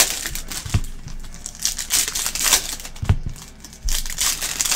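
Foil trading-card pack wrappers crinkling and tearing as they are ripped open by hand, in repeated rustling bursts. A couple of dull bumps are heard under them.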